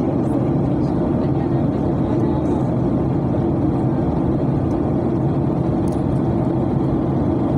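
Airliner cabin noise in flight: a steady, even low rumble of engines and airflow heard from inside the cabin.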